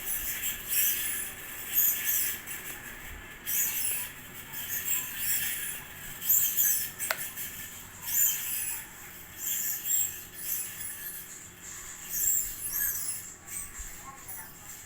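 GMC BM-503 ceiling fan running with its worn bearing squeaking: high-pitched chirping squeaks that repeat irregularly about once a second, the sign of a bearing worn out after nine years of use.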